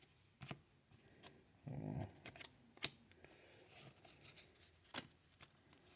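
Faint handling of trading cards: a few light clicks and taps as the cards are sorted into piles, with a short low voice-like hum about two seconds in.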